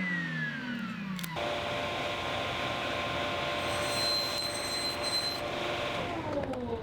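Electric power tool motor in a woodshop: a falling whine as it winds down, then a sudden change to a steady running whine with a hiss, and another falling whine as it winds down near the end.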